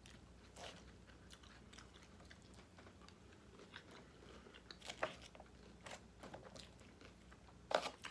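Soft chewing of salad and chicken held close to the microphone, with scattered faint mouth clicks and a few louder crunchy bites near the middle and end.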